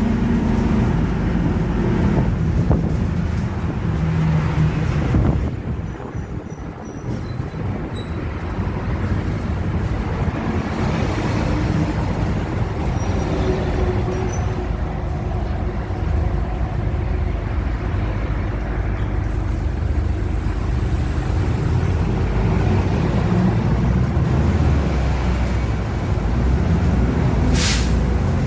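Mercedes-Benz OF-1721 city bus driving, its diesel engine and drivetrain running with a droning differential. The sound eases off briefly about six seconds in, then picks up again, and a short hiss of air comes near the end.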